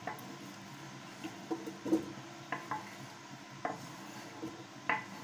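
A spoon stirring in a cooking pot, knocking against it in about six short clicks spread over the few seconds, over a faint steady hum.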